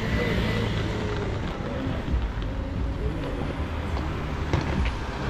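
Hard-shell rolling suitcase wheels rumbling steadily over street pavement, with a few light clicks near the end.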